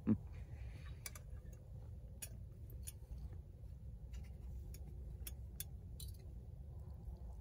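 Quiet eating: about eight small, irregular clicks from chewing and a utensil, over a low steady rumble.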